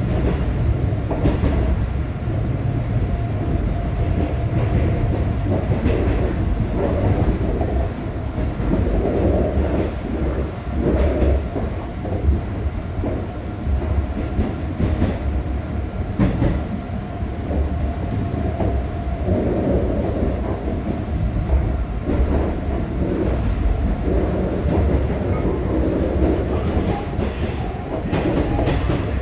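Cabin noise of a Line 1 refurbished resistor-control electric train running at speed, heard from inside the passenger car: a steady low rumble of wheels on track, with frequent short clacks and knocks over rail joints.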